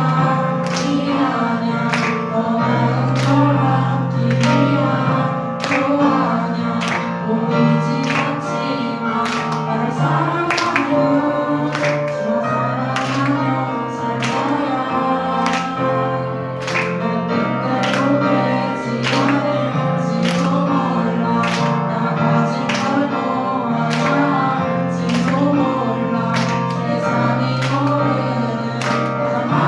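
Contemporary worship band playing a song with group singing, over sustained bass notes and a steady drum beat.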